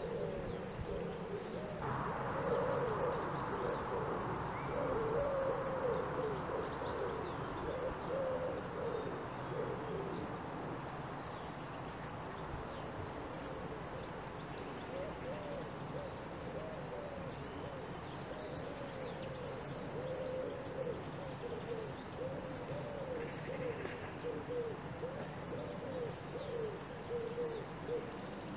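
Wild birds calling outdoors: low, short calls repeating over and over, with fainter high chirps above them. A soft rushing hiss rises about two seconds in and fades away over the next several seconds.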